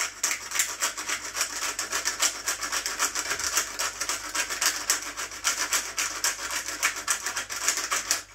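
Hand-held pepper grinder being twisted, cracking peppercorns in a steady rasping run of rapid crunching clicks that stops abruptly near the end.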